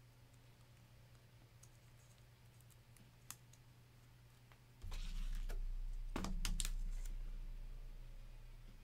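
Faint scattered clicks, then a low rumble that starts suddenly about five seconds in and slowly fades, with a few sharper clicks a little after it begins.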